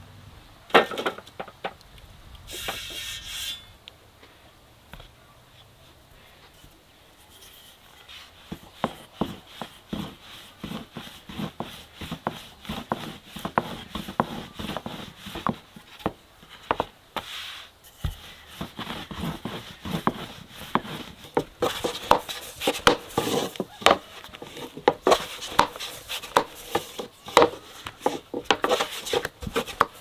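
Wooden rolling pin rolling and knocking on a floured wooden board as a sheet of dough is rolled out: a quick run of light wooden knocks and rubbing that grows busier and louder in the second half. Near the start, dry firewood sticks clatter as they are laid on a metal stand.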